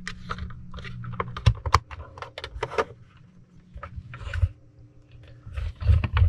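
Hard plastic of a G.I. Joe Retro Cobra HISS toy tank clicking and knocking as it is handled, the canopy closed over the driver figure and the tank picked up and turned over; irregular light clicks, with a few heavier knocks near the end.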